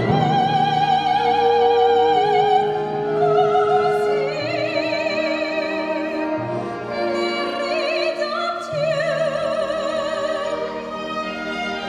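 Operatic singing in classical style, long held notes with wide vibrato, over orchestral accompaniment.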